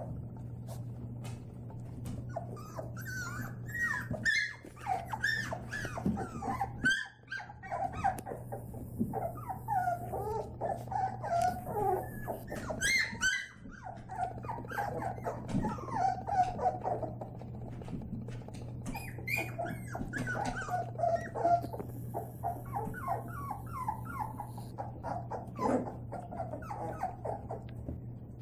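Labrador puppies play-fighting, giving many short, high-pitched whines and yips mixed with small growls.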